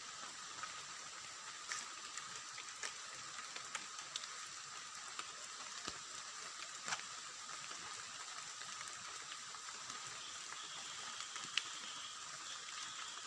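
Forest ambience: a steady, quiet hiss with a few faint, scattered clicks.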